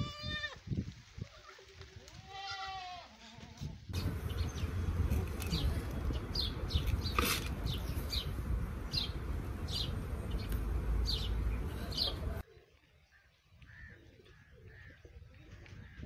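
Young goat kids bleating, two short wavering calls in the first few seconds. From about four seconds in, a loud steady rumble and hiss with a string of short high chirps, which cuts off suddenly near the end.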